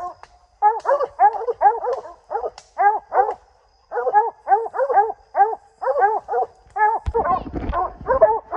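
Coonhounds barking steadily at the base of a tree, short barks about three or four a second in runs with brief pauses: the tree bark of hounds that have treed a raccoon. A brief rustle of noise comes about seven seconds in.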